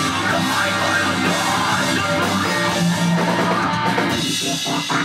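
Rock band playing live on electric guitars and a drum kit with cymbals.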